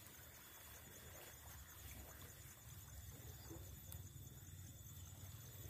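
Near silence: only a faint low background rumble.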